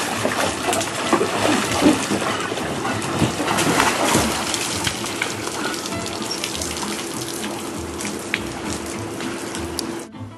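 Hot tub jets churning the water with a steady hum underneath, and splashing as a person thrashes in the tub and then wades out with water streaming off. The sound cuts off sharply near the end.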